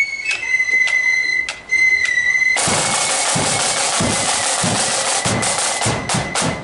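Marching flute band: flutes hold a high note over sharp drum strikes, then about two and a half seconds in the drums take over in a loud roll with cymbals and repeated bass drum beats.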